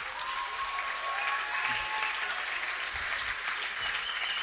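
Live comedy-club audience applauding steadily, with a couple of faint high whistles over the clapping.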